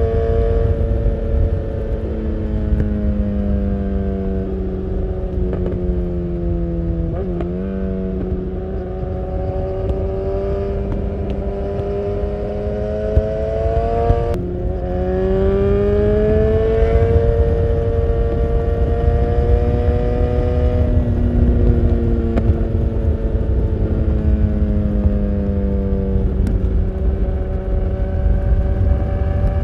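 BMW S1000R inline-four with an Akrapovic full exhaust under way, its engine note falling off and climbing again several times as the throttle closes and opens through bends, with a quick blip about seven seconds in. Steady wind rumble on the microphone underneath.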